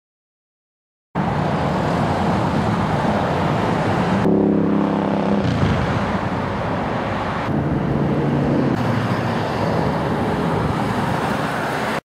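Road traffic: passing cars' engines and tyres, starting abruptly about a second in after silence. About four seconds in, a vehicle's engine note stands out over the traffic for a second or so, and a lower engine note returns around eight seconds in.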